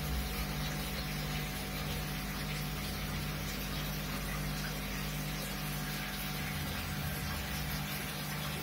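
Aquarium air stone bubbling steadily, over the low steady hum of the tank's pump.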